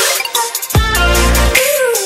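Background electronic dance music in a dubstep style with a heavy, deep bass; the bass drops out near the start and comes back with a downward-sliding bass hit about three quarters of a second in.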